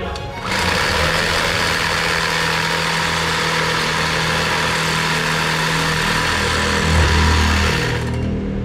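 Electric knife running and sawing through a loaf of bread, a steady motor buzz that switches on about half a second in and stops near the end.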